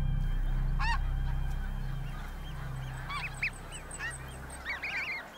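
Snow geese calling with repeated honks: a single call about a second in, then several overlapping honks from about three seconds on. A low steady rumble underneath fades away over the first few seconds.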